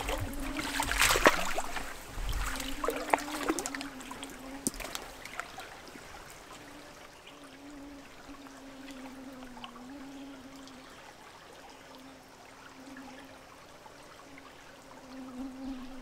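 Small woodland stream trickling, with splashes and knocks in the first few seconds as a just-caught brook trout is handled. After that the water runs on faintly under a thin, wavering hum that comes and goes.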